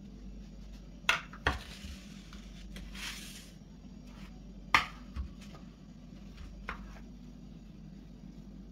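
Kitchenware being handled: a few sharp clinks and knocks, two about a second in and the loudest near the five-second mark, with a brief rustling scrape between them.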